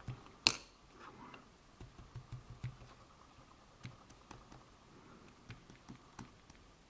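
Small, scattered clicks and ticks of lock pins being worked out of a Mul-T-Lock padlock's cylinder, with one sharper click about half a second in.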